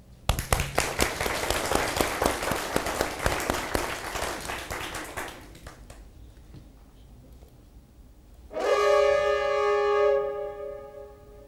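Studio audience applauding for about five seconds, dying away. About eight and a half seconds in, a held brass-like chord from the game show's music comes in and fades out.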